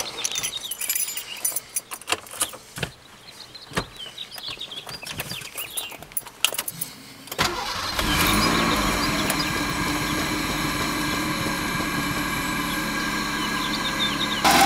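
Scattered clicks and knocks, then about halfway through the Ford Taurus engine cranks and starts, rises briefly and settles into a steady idle.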